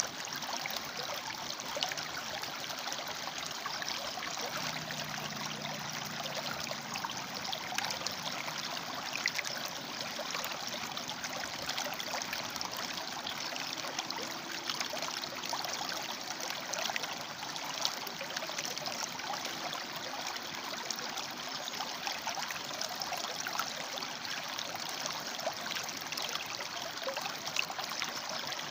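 River water flowing over and between rocks: a steady rushing, dotted with many small splashes.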